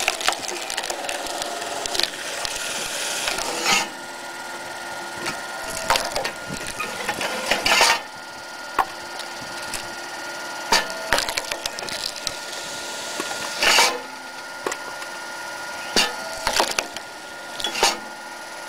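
Cone screw log splitter turning with a steady whine while its threaded cone bores into logs, which give off sharp cracks and splintering as they split, every second or few; the loudest splits come about eight and fourteen seconds in.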